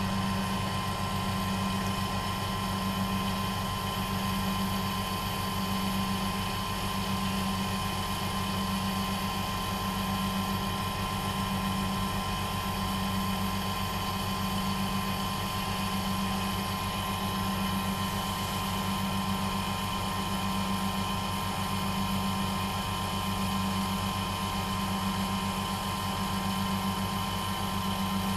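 Wood lathe running at speed with a steady motor hum that swells gently and regularly, while a pen blank spinning on its mandrel is buffed with a cloth to polish a microcrystalline wax finish.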